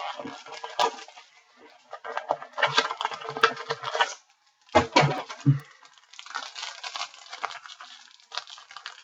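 Trading-card pack wrappers and cards being handled: rustling and crinkling with some tearing, with a few soft thuds about five seconds in.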